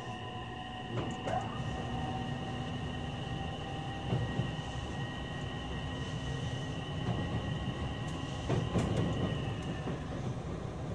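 Running sound inside a JR West 227 series electric train under way. The Toshiba IGBT-VVVF inverter and traction motors hum in several steady tones over the rumble of the wheels, with a few rail-joint clicks. The tones fade out near the end.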